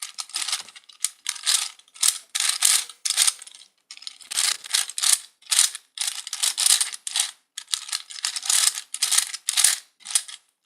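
Gear Ball puzzle being twisted, its plastic gears clicking and clattering in quick bursts of turns with short pauses between them.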